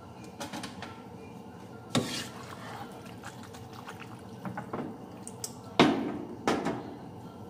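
Wooden spoons stirring and tossing rigatoni in meat sauce in a nonstick frying pan. The pasta squelches wetly, and the spoons knock sharply several times, loudest about two seconds in and twice around six seconds.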